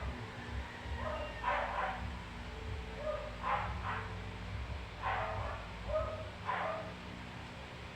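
A dog barking repeatedly, short barks about every one and a half seconds, over a low steady hum.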